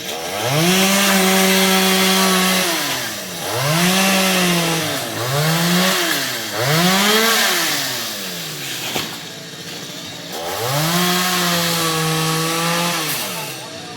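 Stihl MS 382 two-stroke chainsaw revved to full throttle five times, dropping back toward idle between: a long burst, three shorter ones in quick succession, a pause at low revs, then another long burst. The high-revving stretches carry the hiss of the chain cutting into coconut wood.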